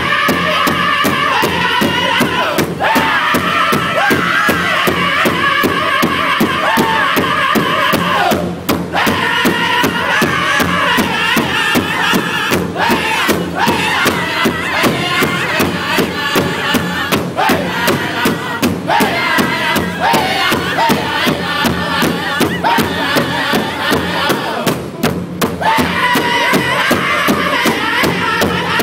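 Powwow drum group singing a Woman's Traditional song in unison over a steady beat on a shared big drum. The voices are high-pitched and drop out briefly a few times while the drumming carries on.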